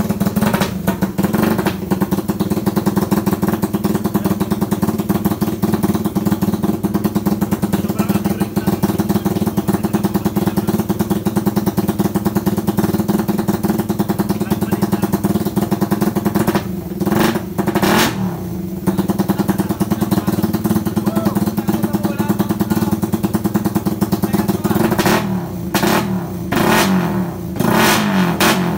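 Motorcycle engine fitted with a CNC dual throttle body, idling steadily and revved in short blips: twice a little past halfway and several times near the end.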